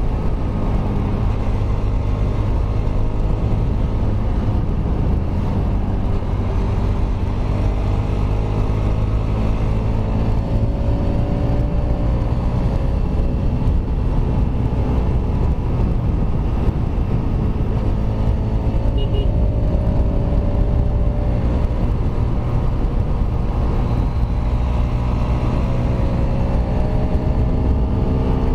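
Kawasaki Rouser RS200 motorcycle's single-cylinder engine running under way, its pitch rising and falling as the rider accelerates and eases off, over a steady low rush of riding wind and road noise.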